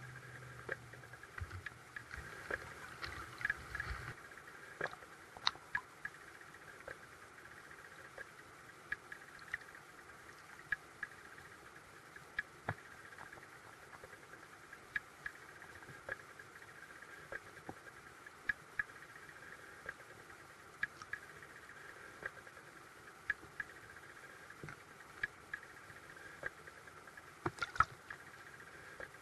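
Faint underwater ambience from a submerged camera in a creek: a steady hiss scattered with many sharp, irregular clicks and ticks. A low hum runs for the first four seconds, then stops.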